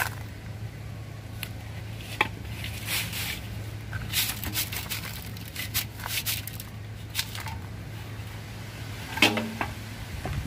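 Gritty potting mix being poured from a metal basin and scraped and pressed in by hand around a tree trunk in its pot, as a run of short sandy scrapes and crackles. A louder clunk comes near the end.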